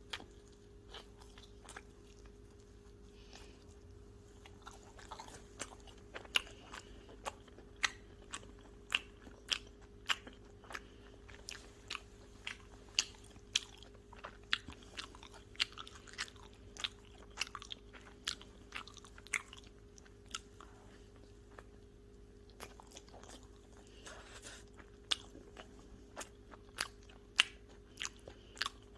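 A person chewing pizza close to the microphone, with crisp crunches about one and a half times a second. Near the end there is a short lull, then the chewing resumes.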